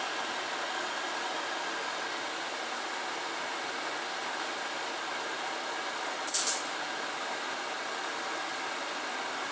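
Kettle boiling: a steady rushing hiss of water at a rolling boil, with a faint whistle-like tone running through it. About six seconds in comes a brief, sharp, high hiss, the loudest moment.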